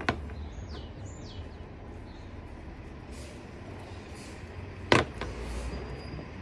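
Steady low rumble of outdoor traffic, with two sharp knocks from eggplant being cut and handled on a plastic cutting board: one just after the start, and a louder one about five seconds in.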